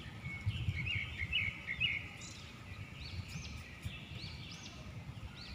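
Small birds calling: a twittering run of chirps between about half a second and two seconds in, then short arched chirps repeating several times, over a low rumble.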